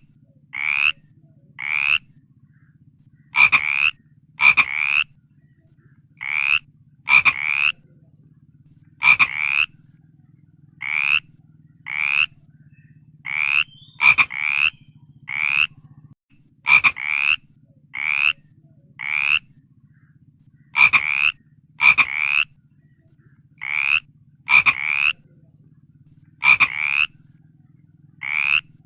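A frog calling over and over, a short croak roughly every second, often two in quick succession. Each call starts with a sharp click and rises slightly in pitch, over a steady low drone.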